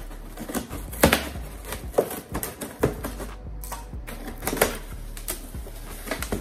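Scissors cutting the packing tape on a cardboard shipping box, then the cardboard flaps being pulled open: a run of cardboard clicks, crackles and knocks. The loudest knocks come about one, two and four and a half seconds in.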